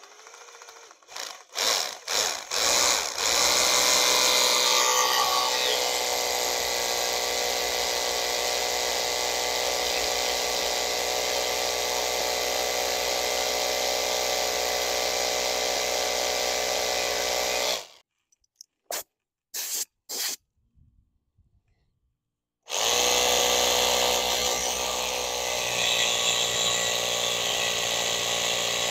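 Corded hammer drill boring a masonry bit into a poured concrete foundation wall to make anchor holes. It starts with a few short trigger bursts, then runs steadily until it stops about 18 seconds in. A few brief blips follow, and a second steady run starts at about 23 seconds.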